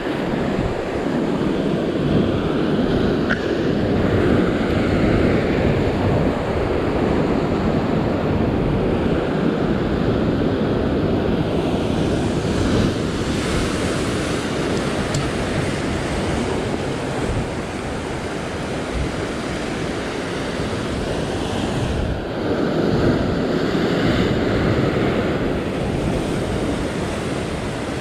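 Sea surf surging and washing over a rock ledge, rising and falling with each wave, with a bigger surge a little over twenty seconds in.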